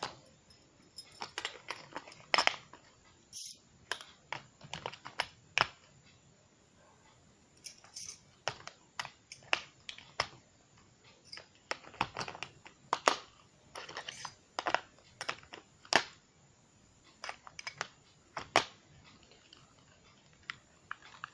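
Small metal screwdriver bits and the plastic parts of a Taparia 840 precision screwdriver set being handled, clicking and tapping against each other in irregular sharp clicks.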